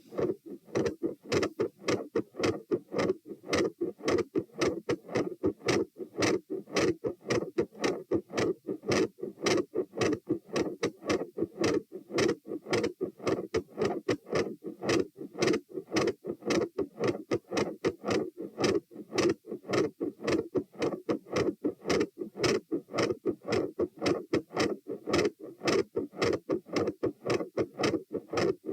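Fast human heartbeat picked up on the chest, about two beats a second, each beat a lub-dub pair of thuds. A murmur around the second heart sound is described as an intermittent machinery murmur.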